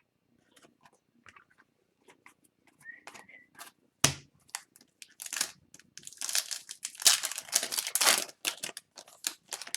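Hockey card pack wrapper being torn open and crinkled, with scattered light clicks and taps first and a sharp knock about four seconds in.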